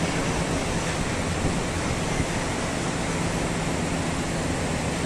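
Steady, even machine noise: a rushing hiss with a low hum underneath.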